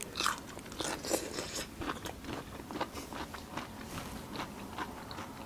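A person eating close to the microphone, chewing with a string of short, uneven crunches and mouth clicks, a few each second, louder at first.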